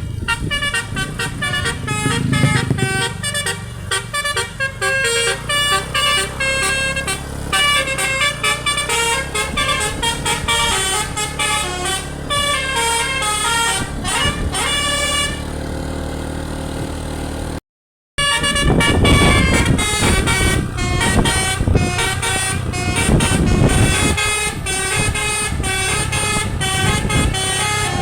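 Bus 'telolet basuri' musical air horn (DAV musical airhorn) playing a fast melody of short stepped notes, with a brief break about two-thirds through. Heavy vehicle rumble runs under the horn after the break.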